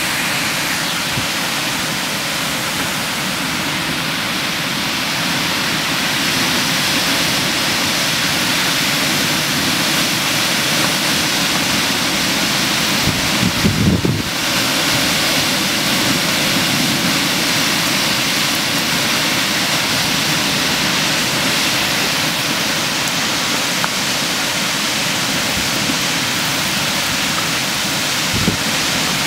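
Heavy rain pouring steadily in a severe thunderstorm, with storm wind. Near the middle there is a brief, louder low rumble.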